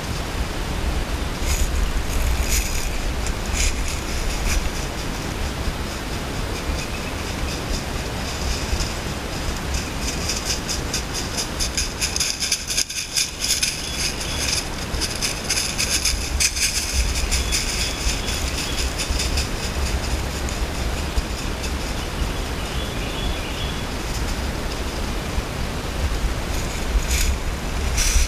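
Wind rumbling on the microphone, with steady crunching and rustling of dry leaf litter underfoot, busiest about halfway through.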